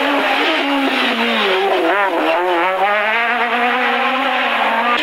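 Four-cylinder rally car engine revving hard at speed. Its pitch drops over the first couple of seconds, wavers quickly for about a second, then climbs steadily again.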